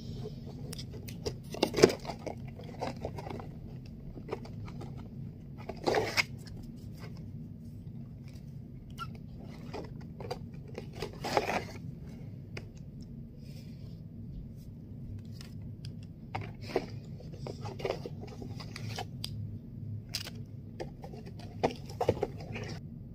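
Cardboard toy box and its packaging being handled and opened: scattered rustles and scrapes with a few louder clatters, over a steady low hum.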